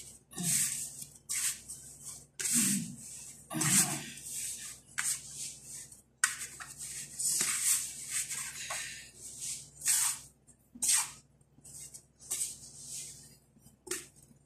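Hands kneading yeast dough in a floured metal basin: irregular scuffing and rustling swishes of dough and flour against the metal, with a couple of soft thumps about three seconds in.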